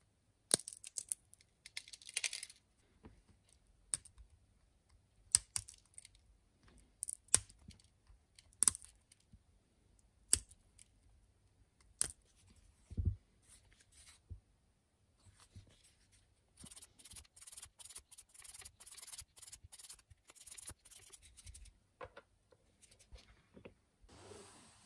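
Sharp little clicks and scratchy rubbing as fingers pick and scrape the hardened remains of an old rubber ink sac off a vintage fountain pen's section. A run of quick scratching comes in the second half.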